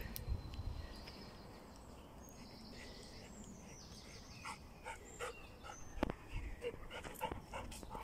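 Footsteps crackling on a leaf-covered dirt path as a Labrador trots along it, with short sharp ticks coming thick over the last few seconds. A brief high whistled tone sounds about three seconds in.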